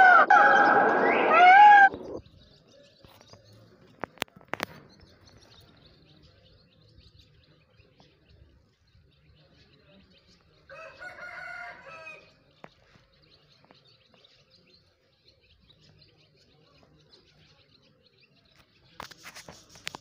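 Indian peacock calling: a loud, harsh call with rising-and-falling pitch that ends about two seconds in, then a shorter, fainter call about eleven seconds in.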